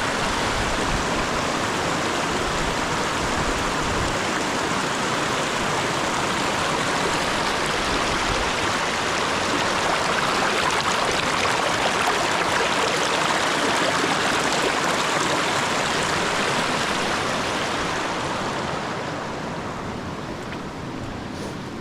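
Steady rushing of flowing water, loud and even, slowly fading over the last few seconds.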